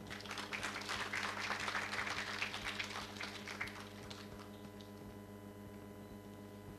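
Audience applauding, dying away about four seconds in, over a steady low hum.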